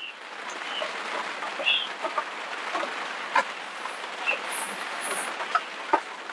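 Steady patter of rain on a greenhouse's translucent plastic roof, with scattered light ticks of drops and a few short high chirps.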